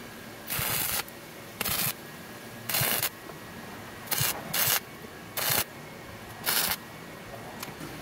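Wire-feed welder arc crackling in seven short bursts, each about a quarter to half a second long: short welds laid on steel.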